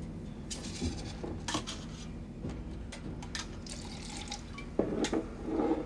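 Drink poured from a glass bottle into small glasses, with light glass clinks, over the steady low rumble of a train carriage. There are a few louder knocks near the end.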